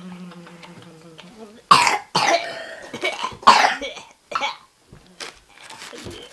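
A person's voice: a low hum held for about a second and a half, then two loud cough-like bursts, with smaller crackles of paper wrapping being handled between them.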